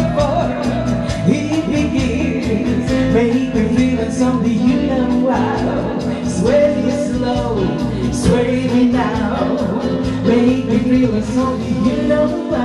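A woman singing into a handheld microphone over amplified instrumental accompaniment with a steady beat, played through PA speakers in a dance hall.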